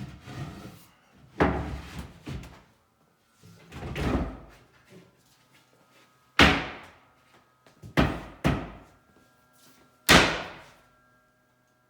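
Cabinet back panel being worked into its grooves in an assembled cabinet box: scraping and rubbing of wood, then a series of sharp wooden knocks as it is seated, the loudest about six and ten seconds in.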